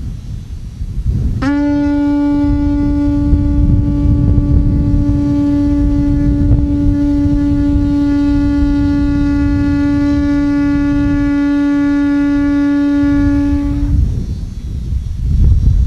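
Conch shell trumpet (Hawaiian pū) blown in one long, steady, held note. It starts about a second and a half in and stops suddenly after about twelve seconds.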